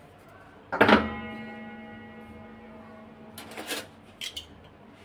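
A sharp strike about a second in, followed by a single ringing note that dies away slowly over about two and a half seconds; a few brief scuffs come near the end.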